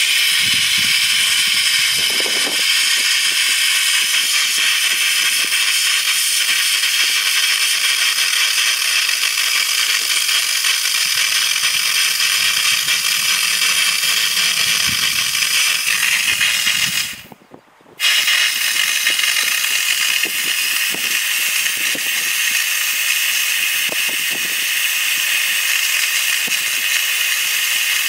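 Steam jetting from an Optima Steamer's hand tool in a steady, loud hiss, with faint knocks from the tool being moved. The hiss cuts out for about a second a little past halfway, then starts again.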